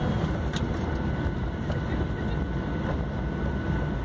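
Jet airliner cabin noise during the landing roll: a steady low rumble of the engines and the wheels running on the runway, with a faint steady high whine over it.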